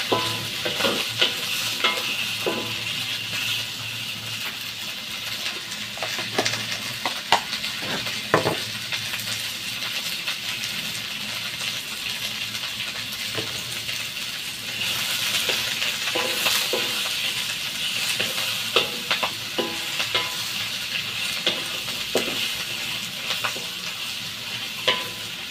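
Vegetables sizzling as they stir-fry in a wok, with the scrape and knock of a wooden spatula against the pan every so often. The sizzle swells for a few seconds past the middle.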